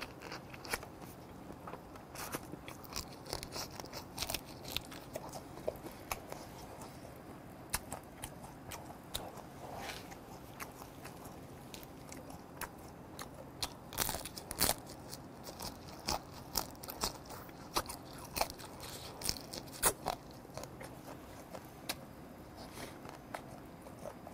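Close-miked chewing and crunching of blue crab, the shell bitten and chewed along with the meat, with many irregular sharp cracks and a few louder crunches.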